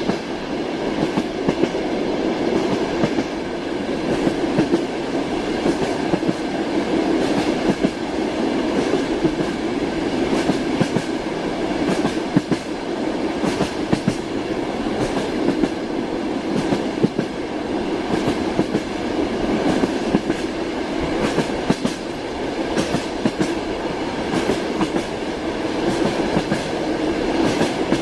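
Train wheels clicking over the rail joints, with a steady rolling rumble from the carriage.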